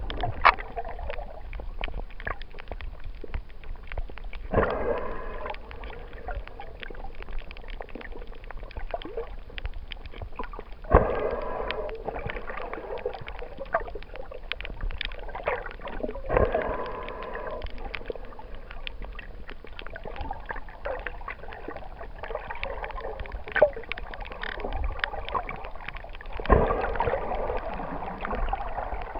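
Underwater sound picked up by a snorkeler's camera: water gurgling and rushing past the camera in four swells several seconds apart, over a constant crackle of small sharp clicks.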